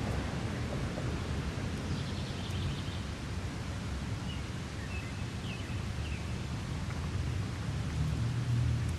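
Steady low outdoor rumble, like wind buffeting the microphone, with a few faint, short bird chirps about two seconds in and again around five to six seconds in.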